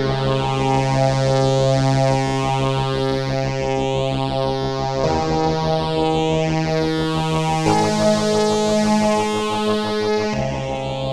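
Multivox MX-3000 vintage analog ensemble synthesizer playing sustained chords through its built-in phaser, which sweeps slowly up and down, with a fast pulsing wobble and reverb/echo. The chord changes about halfway through, again a couple of seconds later, and once more near the end.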